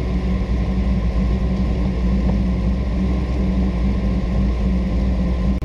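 Truck engine running steadily while driving, heard from inside the cab as an even low rumble.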